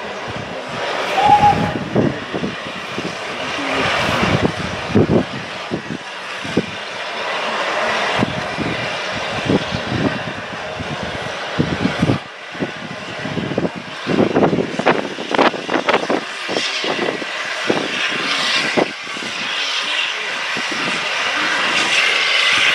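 A steam train running, with a continuous rushing noise and irregular knocks.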